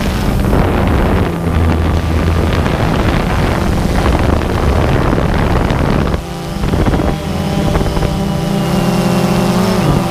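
Camera drone's motors and propellers buzzing steadily, heard from the drone's own camera, with wind buffeting the microphone. The pitch shifts as the motors change speed, most clearly near the end.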